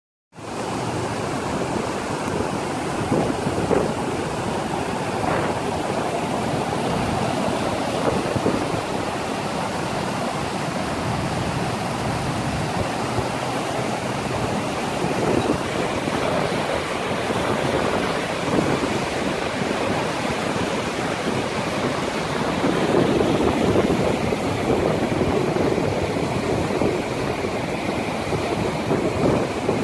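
Truckee River in flood: fast, brown, swollen water rushing and churning through standing waves, a steady loud rush with no break.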